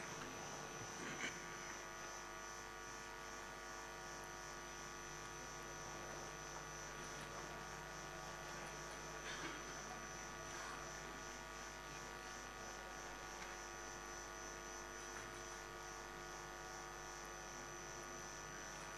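Steady, faint electrical mains hum and buzz, made of several unchanging tones, with a few faint short sounds now and then.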